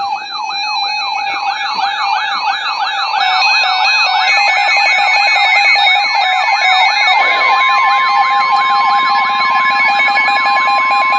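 Several emergency-alert tones sounding over one another from multiple weather radios and receivers: a siren-like alarm that warbles up and down a few times a second, steady two-pitch attention tones, and chirping data-header bursts. About seven seconds in, the steady single-pitch NOAA Weather Radio warning alarm tone joins them. Together they signal an incoming severe thunderstorm warning.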